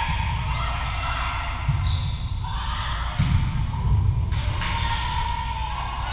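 Volleyball rally in a gymnasium: the ball is struck sharply three times, each hit a short slap with a thud, over a steady hubbub of spectators' voices echoing in the hall.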